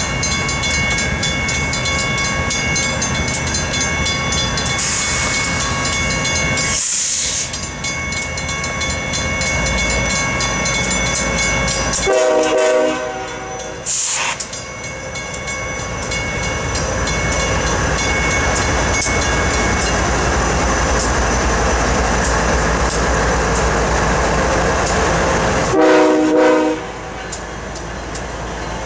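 Diesel freight locomotives running in a rail yard with a steady rumble and whine, sounding two short horn blasts, the first about twelve seconds in and the second near the end, with hisses of air in between.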